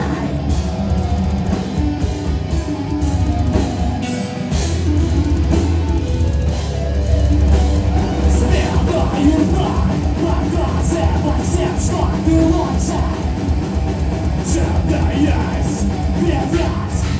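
A heavy rock band playing live: drum kit, guitar and bass with a singer.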